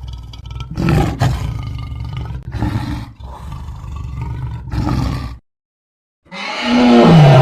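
Sinotyrannus dinosaur roar sound effect: a long, deep, rumbling roar that swells three times and then cuts off. After a second's pause a second, louder roar begins, its pitch falling near the end.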